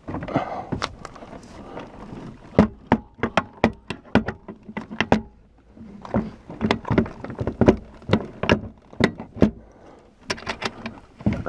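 Sharp metal clicks and knocks from hand tools and hardware as a tilt steering helm unit is fastened under a boat's dash, coming several a second in bursts with a short pause about halfway through.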